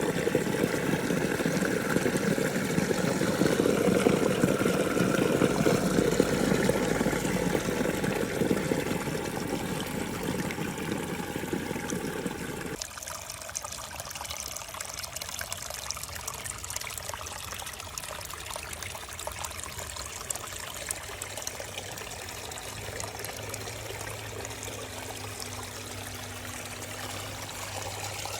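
Small waterfall splashing and running water, a steady rushing noise. About halfway through the deeper part of the rush drops away suddenly, leaving a quieter, thinner trickle.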